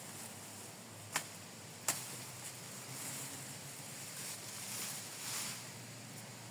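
Wind-blown grass rustling in swells of hiss, with two sharp clicks, one about a second in and another just under a second later.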